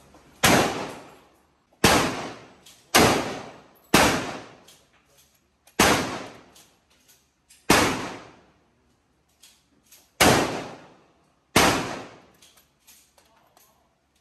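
Eight gunshots at an irregular pace, one to two and a half seconds apart, each a sharp crack followed by a short echo in the enclosed indoor range, with fainter pops and clicks in between.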